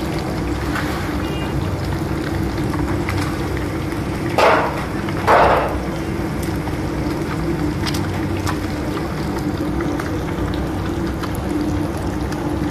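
Battered fish sizzling and crackling as it deep-fries in a large karahi of hot oil, over a steady low rumble. Two brief louder hisses come about four and five seconds in.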